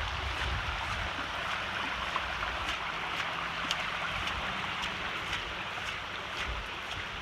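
Floodwater from torrential rain rushing steadily in a runoff stream through the orchard, with scattered faint ticks over it.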